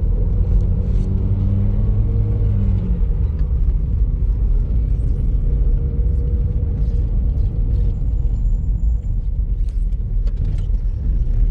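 Car engine running with a heavy, steady road rumble. A humming engine note in the first three seconds drops away about three seconds in.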